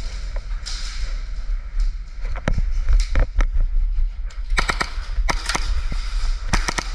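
Airsoft gunfire: sharp cracks, single shots from about two and a half seconds in, then quick doubles and triples, over a steady low rumble.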